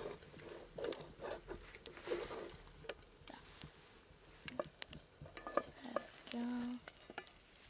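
A utensil stirring and scraping in a cooking pot, with a few sharp clicks of metal on metal and faint sizzling from the food.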